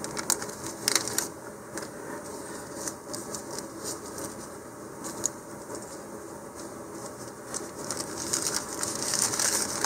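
Crinkling and rustling of a thin plastic model-rocket parachute as it is taken out of its clear plastic package and unfolded by hand, with a few sharp crackles and denser, louder rustling near the end.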